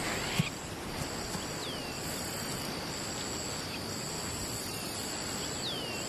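Grassland ambience: a steady high-pitched insect drone, with a second insect chirring on and off above it. Two short falling bird whistles come through, one about two seconds in and one near the end.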